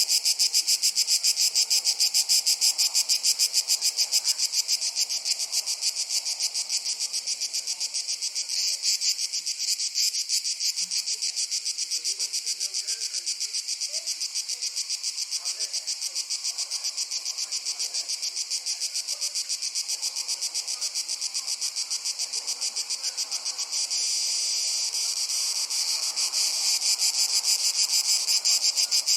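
Dense chorus of summer insects in a Mediterranean forest: a shrill, rapidly pulsing chirring that never stops, dipping a little through the middle and swelling again near the end.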